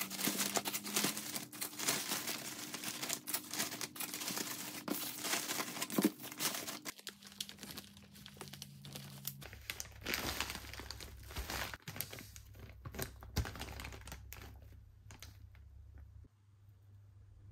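Plastic zipper storage bags crinkling and rustling as bagels are pushed into them, dense at first and then sparser, with small crackles as the zip seal is pressed shut.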